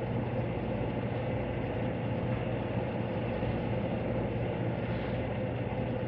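Steady mechanical hum with a constant low drone, unchanging throughout.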